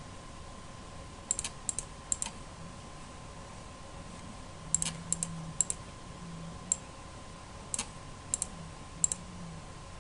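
Sharp clicks of a computer mouse, single and in quick double pairs, about a dozen scattered through the stretch, over a faint steady electrical hum.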